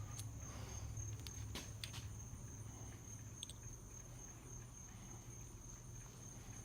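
A few light clicks as a spark plug gap gauge is slid onto a new spark plug to check its gap, over a steady faint high-pitched whine.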